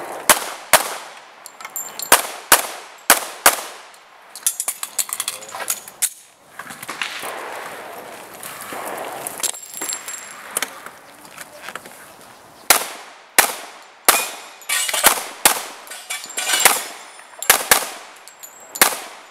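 Handgun shots fired in quick pairs about a third of a second apart, string after string with short pauses between, roughly twenty shots in all.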